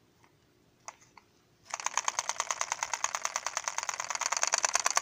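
Homemade one-cylinder solenoid engine starting up about a second and a half in, then running as a rapid, even clatter of clicks that grows louder.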